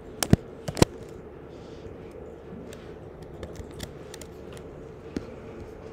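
Typing on a computer keyboard: two sharp key clicks in the first second, then a few scattered faint taps over a steady low hum.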